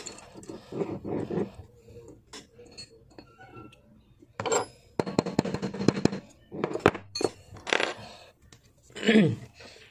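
Metal clicking and scraping from a Zigana pistol slide being handled and pressed against a wooden surface to work loose a firing pin stuck with rust. Faint handling noise at first, then a run of sharp clicks in the second half.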